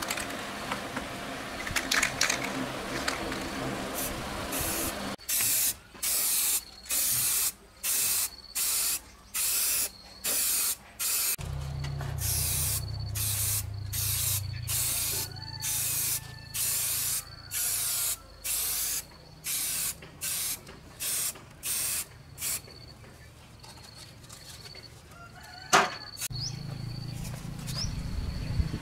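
Aerosol spray-paint can hissing in about twenty short bursts, roughly one and a half a second, with one longer spray in the middle. A single sharp knock sounds near the end.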